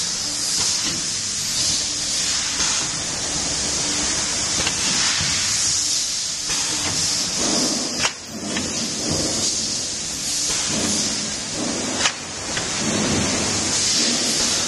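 Automatic cup filling and sealing machine running, with a steady hiss and two sharp clicks about four seconds apart in the second half as it works through its cycle.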